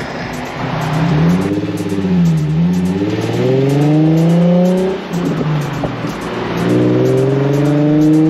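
Nissan 350Z Nismo's 3.5-litre V6 accelerating hard, revs climbing through a gear. The revs drop suddenly at a gear change about five seconds in, then climb again.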